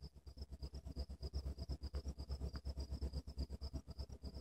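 Steady high-pitched trilling of insects in summer woods, over a louder low rumble that flutters rapidly and unevenly.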